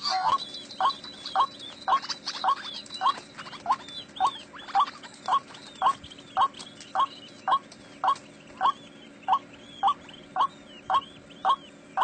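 White-breasted waterhen calling: a long run of short, identical notes repeated steadily at about two a second, with fainter higher notes above them.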